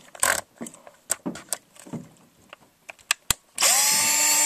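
A few clicks and knocks of handling, then about three and a half seconds in a Black & Decker cordless drill starts and runs at high speed with a loud, steady whine.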